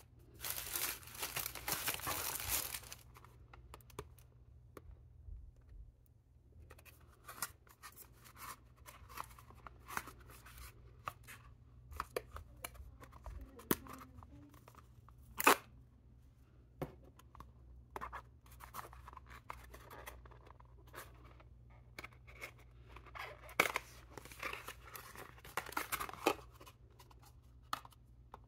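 Paper packaging handled by hand: tissue paper and cardboard boxes rustling, with a loud burst of rustling in the first two or three seconds, scattered small taps and clicks, one sharp tap about halfway, and more rustling near the end.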